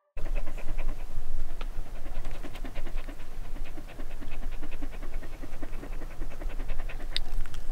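Border Collie panting quickly and rhythmically, mouth open, close to the microphone.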